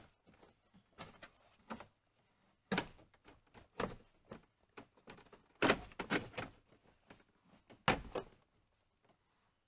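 Plastic lower dash trim panel of a 1998 Dodge Caravan being handled and pressed into place under the steering column: scattered clicks, knocks and rattles of plastic, with a sharper knock near the end.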